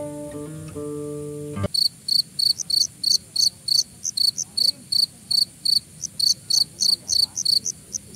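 Acoustic guitar music that cuts off suddenly about a second and a half in, followed by a cricket chirping loudly and evenly, about four high chirps a second.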